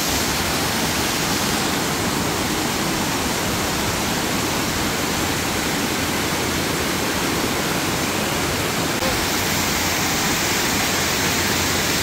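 A waterfall's water pouring down in a steady, even rush that gets a little brighter about nine seconds in.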